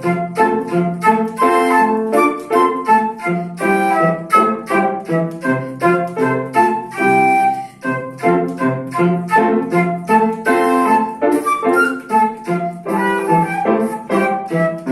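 Solo instrumental classical music: a quick melody of many short notes over a bass line that repeats at a steady pulse.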